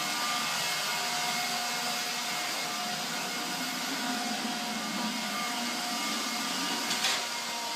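Vacuum cleaner running steadily, with a short click about seven seconds in.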